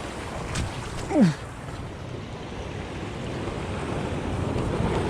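Ocean wave surging in over shoreline rocks, its wash building steadily louder toward the end, with wind on the microphone. About a second in, a short sound falls in pitch.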